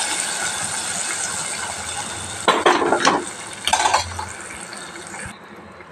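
Hot ghee with fried cashews and raisins sizzling in milky semiya payasam, the hiss fading over a couple of seconds. Then two short metal clatters of a pan or spoon against the steel pot, about two and a half and four seconds in.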